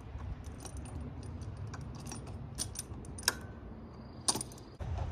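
Hand tool and small metal parts clinking and tapping against a pressure washer's pump fittings as a stuck part is worked at: a scatter of light metallic clicks over a low steady hum, with a sharper clink about three seconds in and a louder clank near the end.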